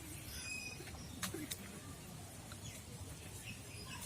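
Faint bird chirps in the background and two light clicks a little over a second in, during quiet mushroom cutting.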